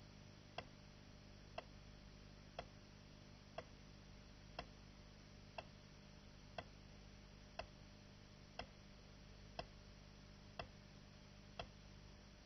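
Faint ticks at an even pace of about one a second, over a low steady hum and hiss.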